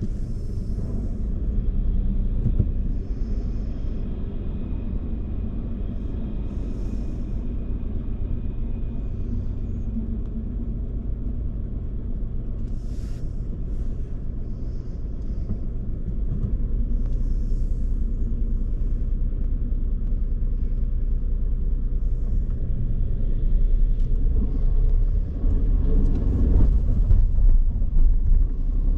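Steady low rumble of a car driving, engine and road noise together, getting louder in the last few seconds.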